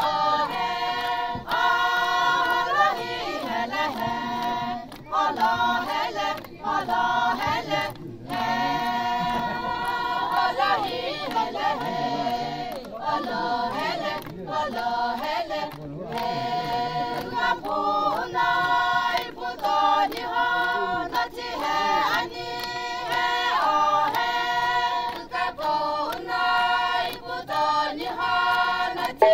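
A group of women singing a Sumi Naga folk song together without accompaniment. The song moves in short held phrases broken by brief pauses.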